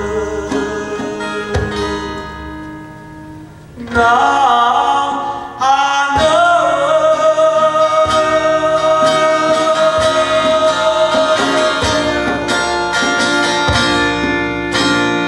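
Live folk song: a man singing with acoustic guitar accompaniment and occasional djembe strokes. The music drops back a few seconds in, then the voice returns strongly and holds one long note.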